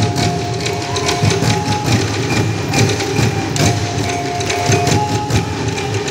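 Live Bukidnon folk dance music: fast, busy percussion strokes over low drum beats, with a few held higher notes alternating between two pitches.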